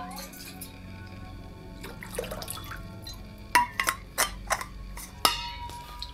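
Water splashing in a bowl, then a metal tube tapped several times and struck once, ringing with a clear, steady tone as it is dipped into the water.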